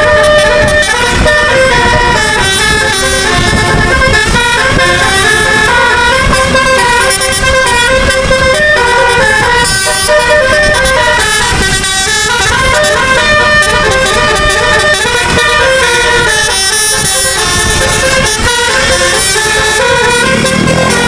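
Telolet musical air horn on a bus, several horn trumpets sounding together and stepping from note to note in a continuous tune.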